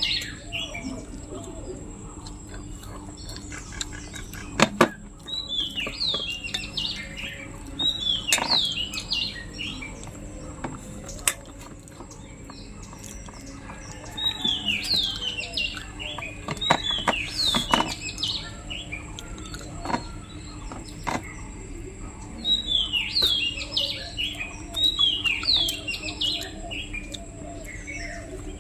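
Small birds chirping in repeated bursts of quick, falling chirps every few seconds, with a few sharp clicks in between.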